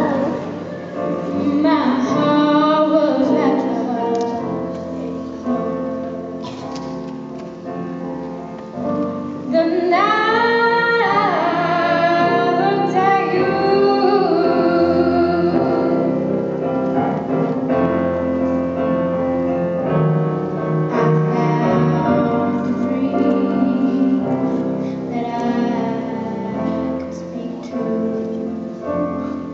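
A young woman singing solo into a microphone over a sustained instrumental accompaniment. Her voice climbs in pitch and grows louder about ten seconds in.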